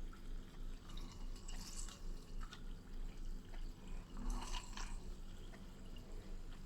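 Faint dripping and squishing as a lemon half is squeezed by hand over a jug of soda, juice dripping into it.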